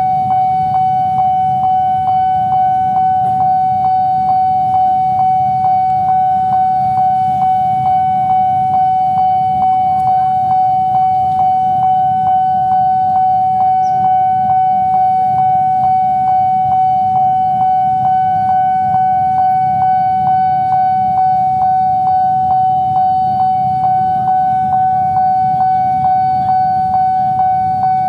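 Nippon Signal electronic railroad crossing bell ringing, one bright tone struck over and over in a fast, even rhythm: the warning that a train is approaching with the barriers down. A low steady rumble lies underneath.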